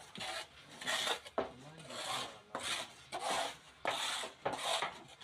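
Cassava being worked by hand with repeated rasping, scraping strokes, as when grating cassava for garri.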